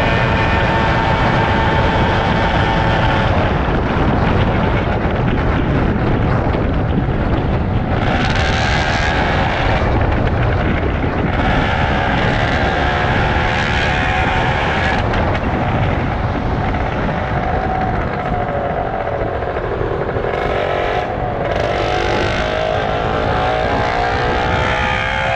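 Superbike engine running under a steady rush of noise. The engine note sinks about eighteen seconds in as the bike slows, then climbs steadily near the end as it accelerates again.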